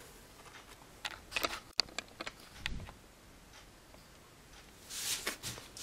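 Faint scattered clicks and taps of a screwdriver working the plastic snap latches of a food dehydrator's cover, then a short scraping rustle of plastic near the end.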